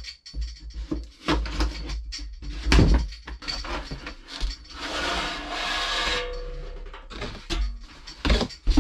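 A parts shipping box being ripped open and its contents handled: rustling, knocks and thuds, with a longer tearing sound about five seconds in.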